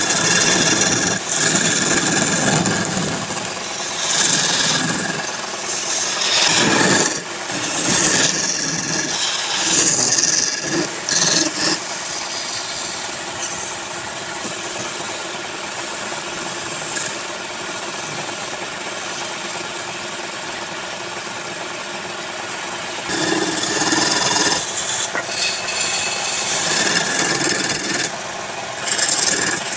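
Wood lathe running with a steady hum, with a tool rasping against the spinning wood in repeated passes. The rasping drops out for several seconds in the middle, leaving only the lathe running, then comes back near the end.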